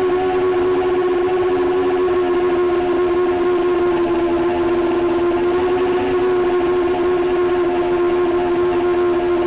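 The T-Motor Air 2205 2000kv brushless motors and propellers of a 7-inch long-range FPV quadcopter whine at a steady cruising pitch, picked up by the onboard camera.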